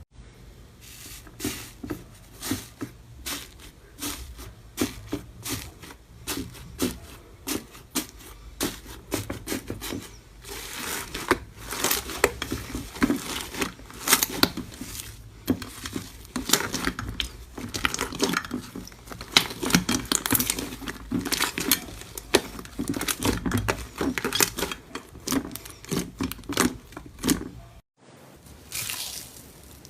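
Slime being squished, stretched and pressed by hand, giving dense, irregular clicks and crackles. There is a brief break near the end before a quieter stretch of the same kind of handling.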